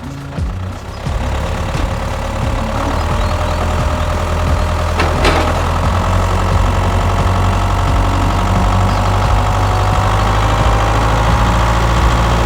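An engine running steadily at idle, with a single sharp click about five seconds in.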